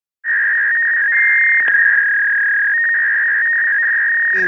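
A censor bleep: one steady, high electronic beep held for about four seconds in place of the cut-out speech.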